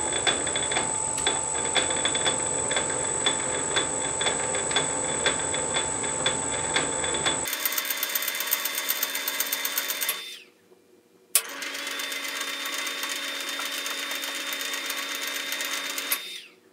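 Rivett lathe running in back gear while single-point cutting a 1.25 mm metric thread, with a steady whine and about two ticks a second. The sound changes abruptly about seven seconds in and stops about ten seconds in. A sharp click follows, then it runs again until just before the end.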